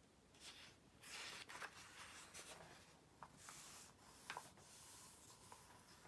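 Pen writing on paper in a workbook, a faint series of short scratching strokes.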